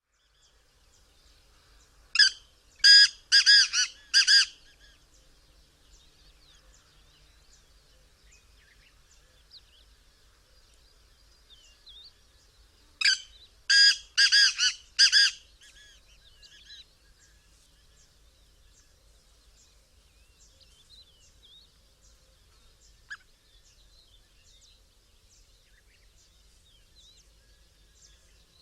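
Black francolin calling twice, each call a quick series of four or five short, loud notes lasting about two seconds, the second call about ten seconds after the first.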